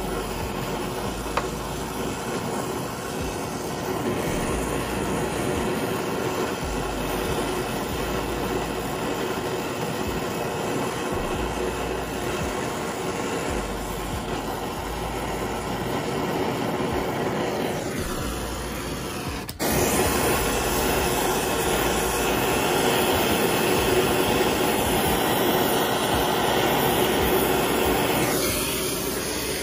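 Brazing torch flame hissing steadily as a copper refrigerant line is brazed at the freezer compressor. The hiss drops out for a moment a little past halfway, comes back louder, and cuts off at the end as the flame is shut off.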